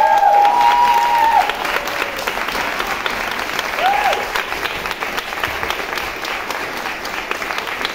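Audience applauding, with loud held cries over the clapping for the first second and a half and a short one about four seconds in.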